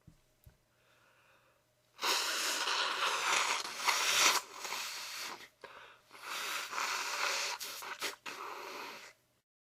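A person's loud, noisy wheezing breaths at the end of a sneezing fit, in two long stretches from about two seconds in, with a short break around six seconds, stopping abruptly near the end.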